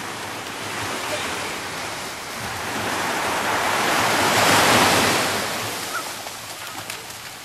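Sea surf on a sandy beach: a steady wash of waves that swells to its loudest about halfway through as a wave breaks on the shore, then falls away as the water runs back.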